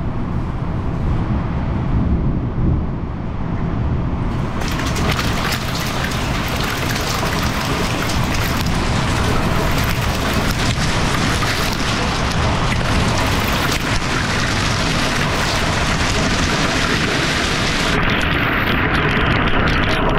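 Strong storm wind rumbling on the microphone, then about four and a half seconds in, hail begins: a dense, continuous patter of pea- to quarter-size hailstones striking the porch and ground, mixed with the wind.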